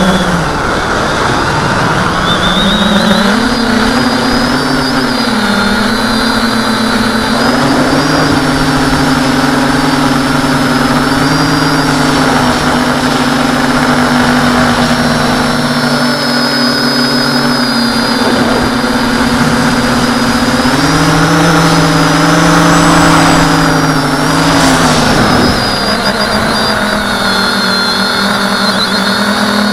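Electric motors and propellers of an RC tricopter heard from its onboard camera: a steady buzzing whine whose pitch dips and climbs as the throttle changes.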